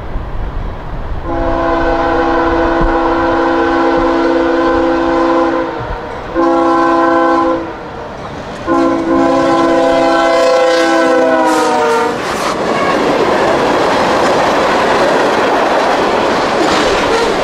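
Diesel freight locomotive's multi-chime air horn sounding for the grade crossing: one long blast, a short one, then another long blast whose pitch drops as the locomotive passes. The train's cars then roll by with steady wheel rumble and clickety-clack over the rail joints.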